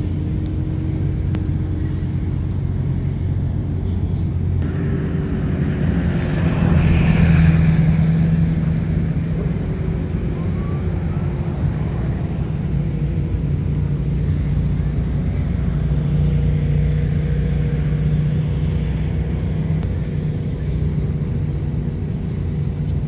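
Motor vehicle engines running steadily, with one passing close and getting louder about seven seconds in.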